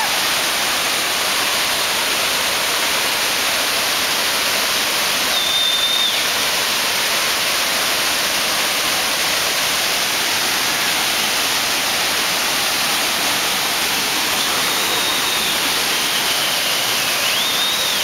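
Large waterfall with a heavy flow of white water, its falling water making a steady, dense rush that does not change.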